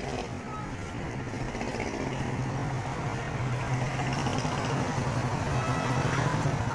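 Motorcycle engine running close by, a steady drone that grows louder from about two seconds in, over general street noise.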